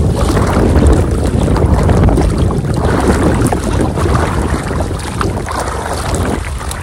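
Wind buffeting the microphone, a loud, steady rumble.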